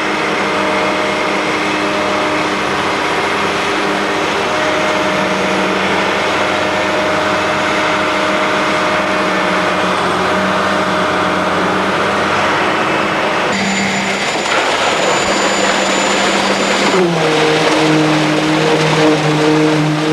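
Heavy construction machinery engine running steadily under load. About two-thirds of the way through its note shifts, and near the end it settles to a new, slightly lower pitch.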